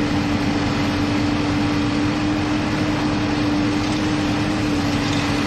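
A backhoe's diesel engine running steadily: a constant hum over an even rushing noise.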